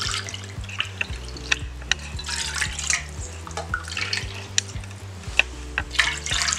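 Water poured from a measuring cup into a non-stick kadai, splashing in separate pours about two seconds apart, with sharp clinks of the cup.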